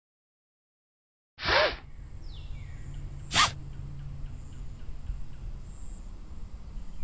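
Sound effects for a kitten's screen game. Silence for over a second, then a short noisy burst, then a steady low hum and hiss with faint ticks. About two seconds later comes one sharp, very brief swish.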